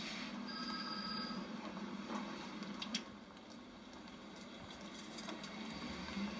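Electronic telephone ringing, heard through a TV speaker: one short burst of high trilling tones about half a second in, then a faint click about three seconds in.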